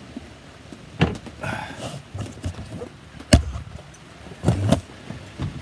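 Handling noise as a camera is picked up and moved around a sailboat cockpit: scattered knocks, bumps and rubbing, with one sharp knock a little over three seconds in and a short cluster of bumps near the end.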